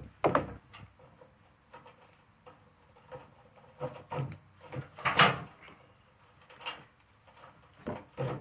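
Irregular handling knocks and clatters, a dozen or so short hits with the loudest about five seconds in, as a tow rope is tied and checked between two lawn mowers.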